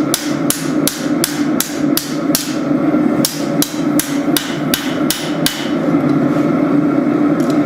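Hammer forging a spring-steel tanto blade: sharp metal-on-metal blows at about three a second, stopping about five and a half seconds in. A steady low hum runs underneath throughout.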